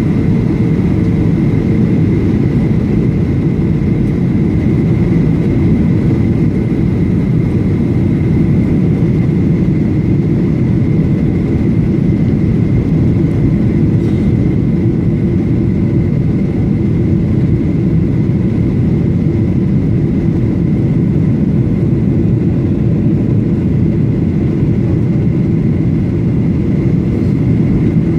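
Steady cabin noise inside a Boeing 737-800 on descent: the low rumble of airflow and its CFM56 jet engines, with a thin steady whine above it. A lower hum fades out about five seconds in.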